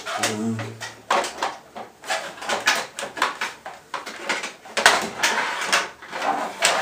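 Plastic front beak of a Triumph Tiger 800 being worked loose and slid forward off its mounting by hand: a run of irregular plastic scrapes, rubs and clicks as the panel shifts against the bodywork.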